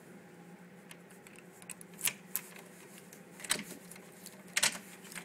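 A key being turned in the lock of a metal apartment entrance door. Several sharp metallic clicks and clacks sound as the lock works, spaced about a second apart.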